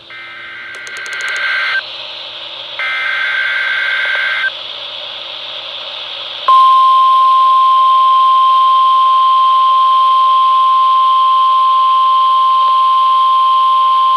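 Emergency Alert System transmission on NOAA Weather Radio: two bursts of SAME header data tones with a pause between, then about six and a half seconds in the steady single-pitched 1050 Hz warning alarm tone begins and holds, all over radio hiss.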